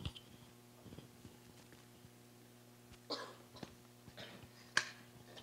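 Faint handling noise from a handheld microphone held against an adjustable metal pole while the pole is pushed down. There are a few small knocks, a short rustle about three seconds in and one sharp click near the end, over a steady low hum.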